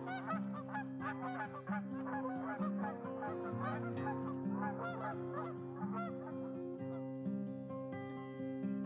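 A flock of geese honking, many short overlapping calls that thin out after about six seconds, over soft guitar background music.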